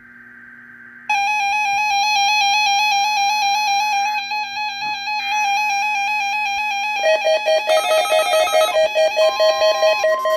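Emergency alert tones for the NOAA Weather Radio weekly test. A buzzy data burst is repeated three times with short pauses, the pattern of SAME header codes. About a second in, a loud warbling electronic alarm starts; near the end a second alarm pulses several times a second and a steady warning tone begins.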